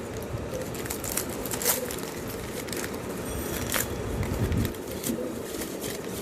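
Crinkling and rustling of small gift wrappings being handled and opened, with many short, sharp crackles and clicks.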